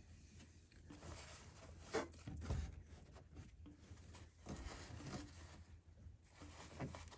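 Faint rustling and a few light knocks of hands handling a shop rag and parts under a truck's hood, over a low steady hum.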